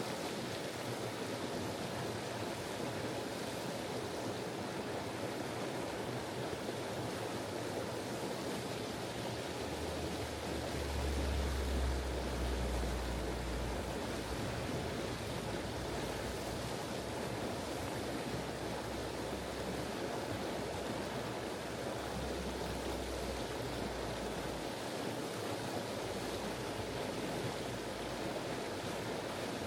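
Sulby River water flowing and splashing over rocks: a steady rushing. A low rumble swells for a few seconds about a third of the way in, and more briefly later.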